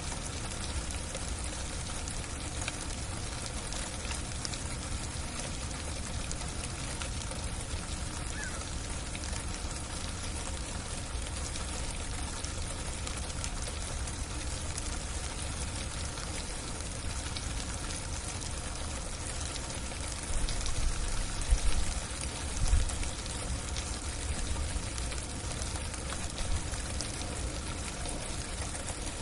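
Freezing rain on a roof: a steady hiss of icy drops with many fine ticks. About two-thirds of the way through, a few louder low rumbling bumps come and go.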